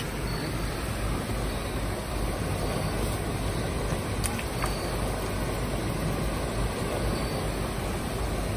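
Steady rush of river water spilling over a low dam and churning below it: a constant, even noise heaviest in the low rumble.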